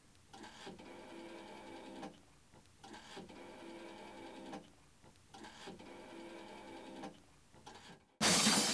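A faint mechanical whirr with a steady hum in it, running three times for about two seconds each with short breaks between. Near the end a much louder sound cuts in suddenly.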